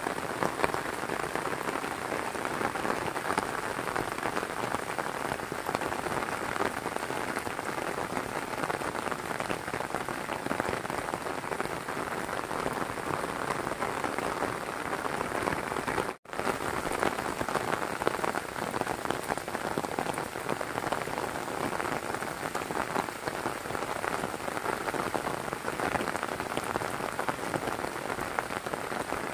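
Heavy rain pouring down steadily, a dense even hiss of drops. The sound cuts out for a split second just past halfway, then returns unchanged.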